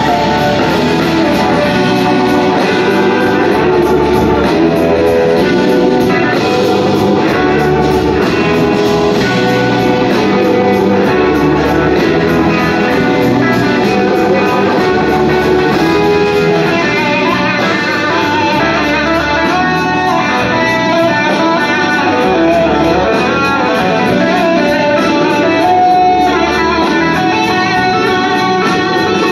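Live blues-rock band in a guitar-led passage: electric guitars over drums and bass, with no break.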